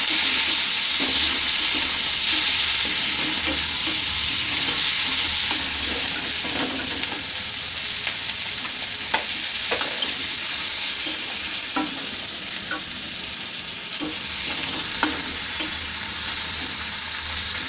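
Sliced onions sizzling steadily in hot mustard oil in a kadai, stirred with a spatula that scrapes and taps against the pan now and then.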